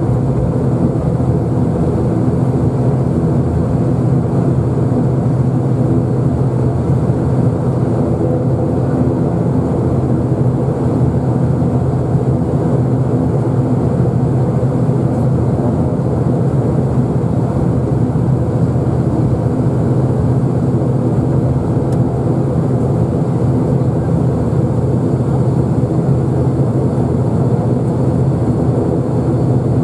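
Turboprop airliner's engines and propellers heard from inside the cabin, a steady drone holding one pitch and level at taxi power.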